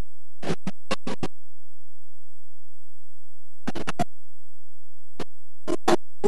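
Faulty camcorder tape audio cutting in and out: brief stuttering snatches of music separated by gaps of silence, in three clusters.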